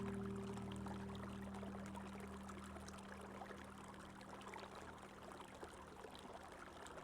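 Running water, a steady soft rush, under a held low chord of background music that slowly fades away.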